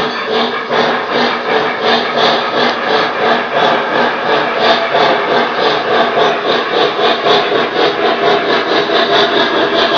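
Sound system of a Lionel Legacy O-gauge steam locomotive playing steady, rhythmic exhaust chuffs, about two to three a second, as the locomotive runs toward the camera, over a steady mechanical hum.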